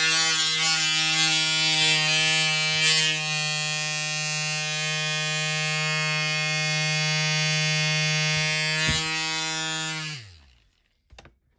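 Small handheld rotary tool running at a steady high speed, cutting into the front wing of a metal diecast car casting. About ten seconds in it is switched off and spins down with a falling pitch.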